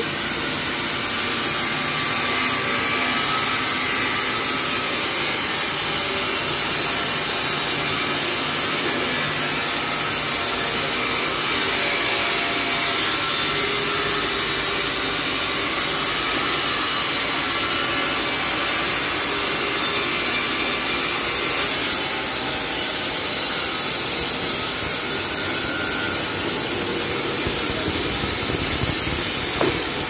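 Carpathian SMSA 110 semi-automatic horizontal band sawmill running: a loud, steady, unbroken noise with a strong high hiss.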